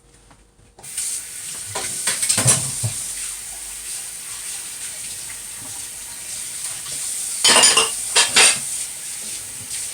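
A kitchen tap turns on about a second in and runs steadily. Pots and utensils clatter against each other twice: around two seconds in, and again more loudly near the end.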